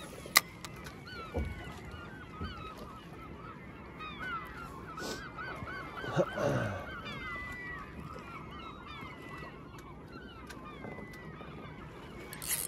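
A feeding flock of seagulls calling, many short overlapping cries, busiest around the middle. A sharp click about half a second in, and a brief low falling sound about six seconds in.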